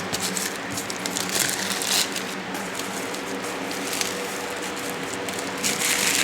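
Cardboard box being opened and unpacked, with irregular crinkling and crackling of packaging over a faint steady hum.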